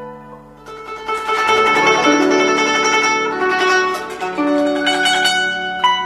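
Solo guzheng played with rapid plucking: after a brief lull, a dense, fast run of notes swells up about a second in, then settles into single plucked notes that ring on near the end.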